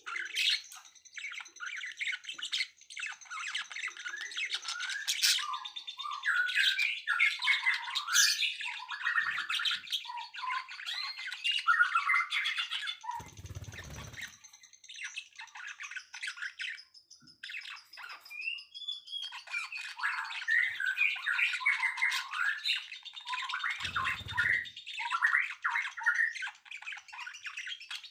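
Several songbirds chirping and twittering in a dense, continuous chorus of quick, high, overlapping notes. Two brief low rumbles come through, one about halfway through and one near the end.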